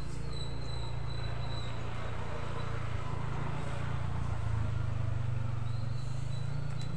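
Steady outdoor background: a constant low hum with insects chirring in a thin high steady tone that fades out in the middle and returns near the end.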